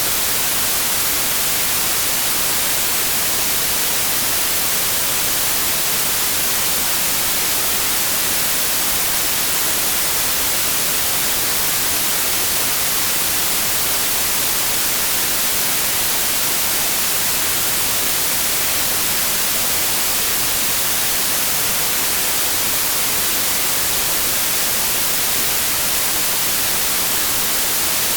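Steady electronically generated white noise: an even, unchanging hiss, brightest in the treble.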